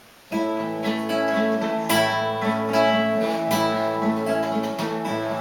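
Acoustic guitar playing the introduction to a song, starting suddenly about a third of a second in with plucked and strummed chords.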